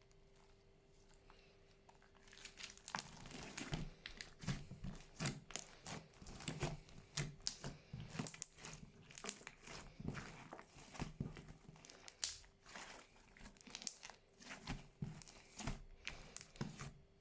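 Fluffy slime being squeezed and stretched by hand, giving dense, irregular crackling and popping that starts a couple of seconds in and cuts off suddenly at the end.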